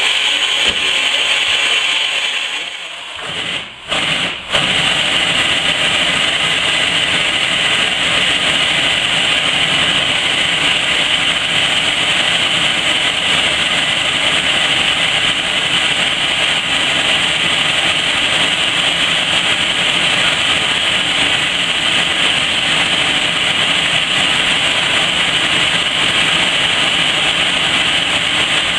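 Steam tank locomotive No. 403 standing still and venting steam low along its side near the cylinders: a loud, steady hiss. It drops away briefly about three to four seconds in, then carries on unchanged.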